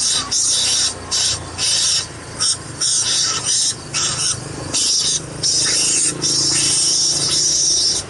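Loud, high-pitched insect chorus in the rice paddy, dropping out for a moment about once a second.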